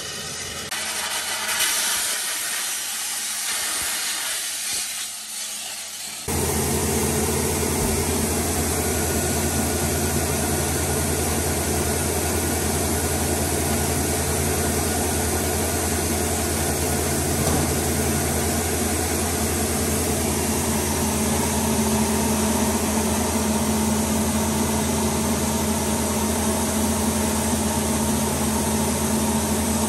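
Aquablaster wet abrasive blaster spraying with an even hiss for about six seconds, then a sudden change to a machine running steadily with a low hum.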